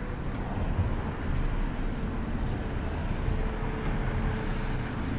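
Steady low rumble of road traffic and vehicle engines, with a faint thin high whine above it.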